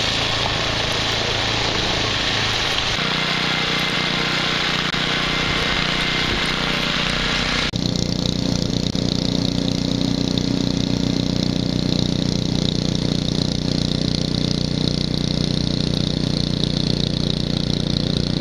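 Gas snowblower engine running steadily under load while the machine clears deep snow and throws it out of its chute. The tone shifts abruptly about three seconds in, and again near eight seconds in, where the low hum becomes fuller and louder.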